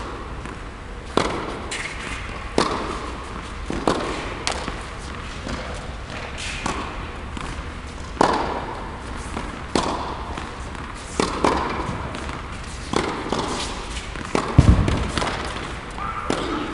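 Tennis rally on an indoor hard court: sharp racket strikes and ball bounces at uneven intervals, roughly one every second or so, each echoing briefly in the large hall. One heavier, deeper thump comes near the end.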